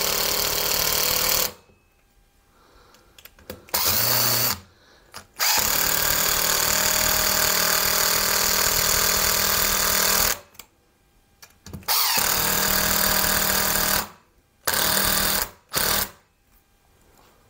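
Power drill driving screws into the wall to fix a TV wall mount, its motor running in about six bursts. The bursts last from under a second to about five seconds, with short pauses between them.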